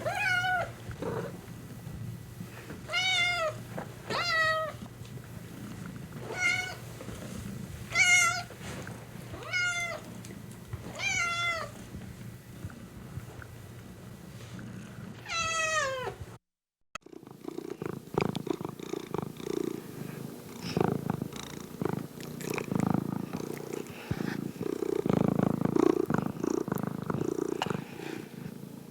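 A house cat giving about nine short meows over a steady low purr, the last a longer meow falling in pitch. After a brief break a second cat recording follows: a low, uneven purring.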